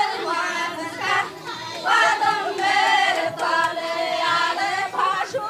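A group of women singing a folk song together, unaccompanied, in long wavering held notes.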